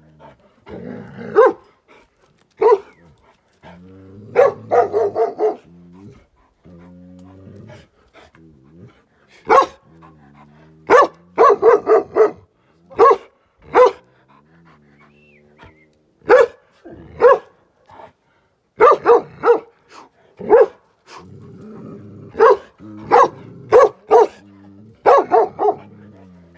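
Gaddi dogs, large Himalayan sheepdogs, barking in irregular bursts of deep barks, several in quick succession at times, with quieter low growling between the bursts.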